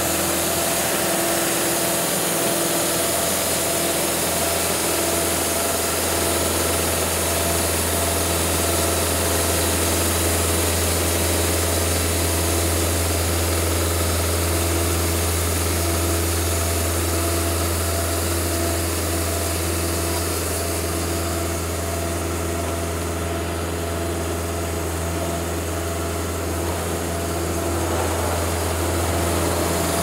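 Cooks AC36 hydraulic band sawmill running steadily while its band blade cuts through a log, a constant low hum with a high hiss over it. The hiss thins for a few seconds about three quarters of the way through.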